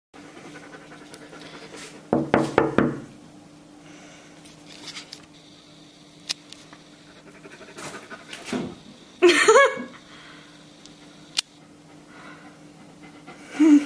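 A dog panting over a steady low hum, with short louder bursts about two seconds in, in the middle and near the end.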